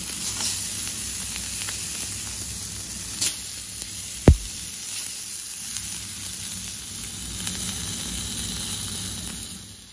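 Herb-crusted beef tenderloin sizzling steadily as it sears in a hot stainless steel pan, with a single sharp pop about four seconds in. The sizzle fades out near the end.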